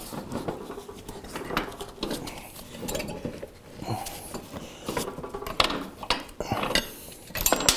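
Irregular metallic clinks and scrapes of a motorcycle's rear wheel hardware being worked loose by hand: the axle, spacers and brake caliper bracket knocking against each other, with a louder clatter near the end.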